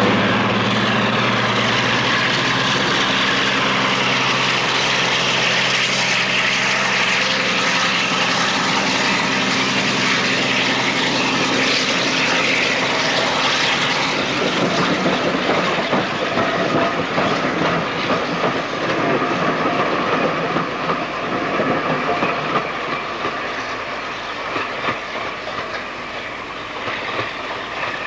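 Class 42 Warship diesel-hydraulic locomotive D821 pulling away with a train, its twin Maybach diesel engines running with a steady note under load. From about halfway, the note gives way to the coaches clattering over the rail joints and pointwork, and this fades slowly as the train draws away.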